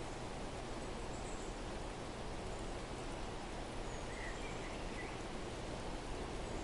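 Steady outdoor background hiss with a few faint, brief chirps of small birds scattered through it.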